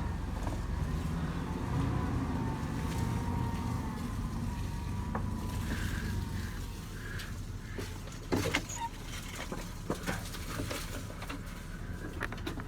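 2001 Dodge Ram's 5.9 V8 engine running with a low rumble, easing off about halfway through. Several sharp clicks or knocks come in the second half.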